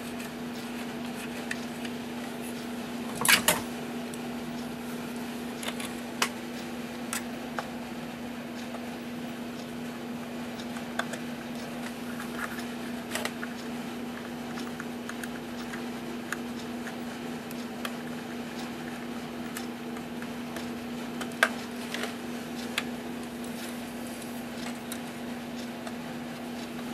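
Scattered clicks and knocks of small parts and a screwdriver being handled while bellows are screwed into a wooden cuckoo clock case, with one louder clack about three seconds in. A steady low hum runs underneath.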